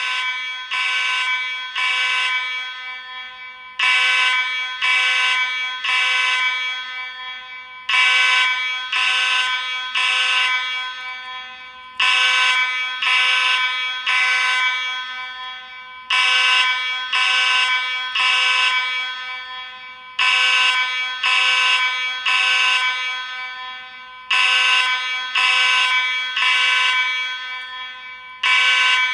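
Space Age AV32 fire alarm horn sounding a loud, buzzy tone in groups of three blasts, each group starting every four seconds. This is the temporal-3 evacuation signal.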